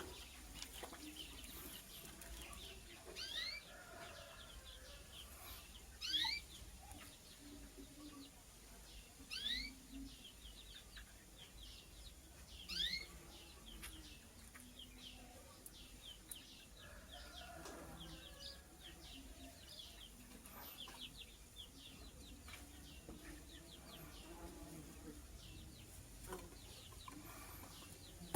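Purple lovebird chirping: four short rising chirps about three seconds apart over the first half, with many fainter quick chirps throughout.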